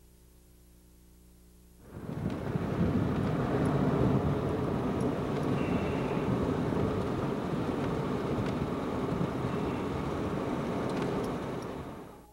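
Loud, steady rushing and rumbling noise, like wind or heavy traffic, starting suddenly about two seconds in and fading out near the end; a faint hum before it.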